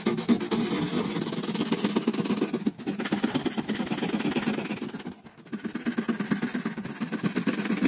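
Sandpaper rubbed back and forth by hand over a hardened patch of sand and super glue on a plastic bin, a steady scraping that pauses briefly twice.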